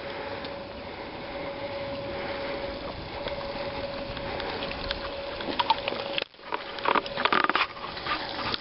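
Bacon frying in a pan on a portable camping stove, with a steady sizzle and crackle. About six seconds in there is a brief drop, then a run of sharp clicks and knocks as the camera is handled close up.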